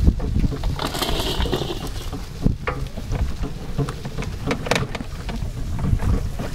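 Rickshaw jolting along a rutted, potholed dirt road: its frame rattles and knocks at irregular moments over a steady low rumble.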